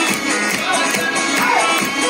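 Loud dance music with a steady beat played over a stage loudspeaker system for a group dance.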